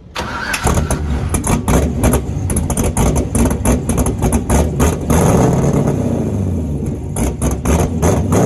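Loud hot rod car engine running, with many rapid sharp crackles over a heavy low rumble. It starts suddenly and tails off near the end.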